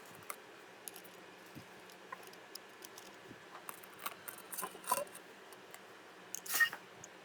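Scattered light clicks and taps over a low steady hum, with two slightly louder short knocks or scrapes about five and six and a half seconds in.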